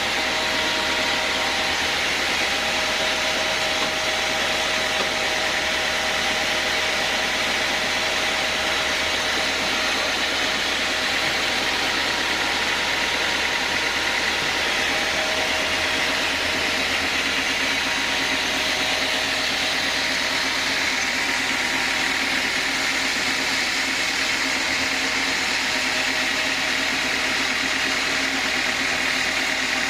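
Sawmill band saw machinery running steadily: a constant mechanical noise with a steady whine over it, unchanging in level.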